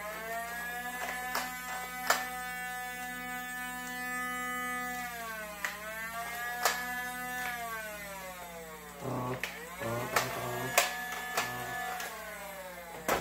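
Motorized Nerf blaster's flywheel motor whirring. It spins up to a steady high whine, holds, then winds down, three times over, with sharp clicks scattered through.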